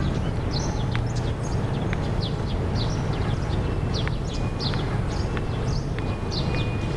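Steady low hum of street traffic with small birds chirping over it, many short quick chirps a second.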